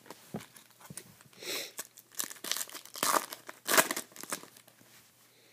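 Foil Topps Chrome card pack wrapper crinkling and tearing as it is ripped open by hand, in a series of short crackling bursts, the loudest about three to four seconds in.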